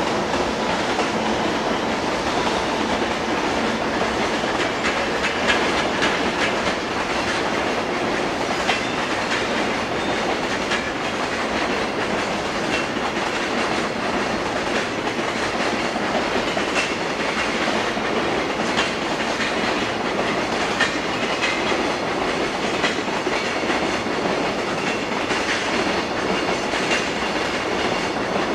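Long freight train of container wagons rolling past at steady speed, its wheels clattering on the rails without a break.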